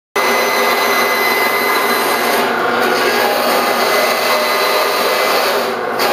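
Bandsaw with a 1/2-inch blade running and cutting through stacked cherry boards, a loud steady whir with a faint high whine. The cutting noise eases briefly twice, about two and a half seconds in and near the end.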